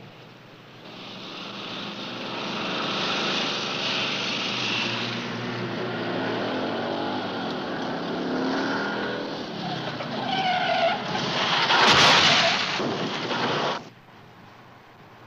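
Police motorcycle engine running at speed with rising and falling pitch, then tyres screeching under hard braking about ten seconds in and a loud crash about twelve seconds in, as the motorcycle hits a truck. The sound cuts off sharply just before the end.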